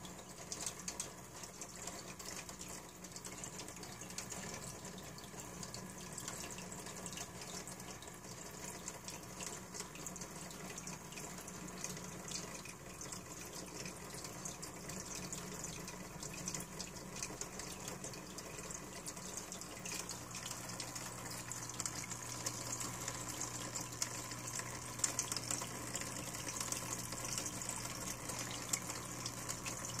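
Aquarium filter running: a steady splash and trickle of water falling back into the tank, over a low hum that shifts lower about two-thirds of the way through.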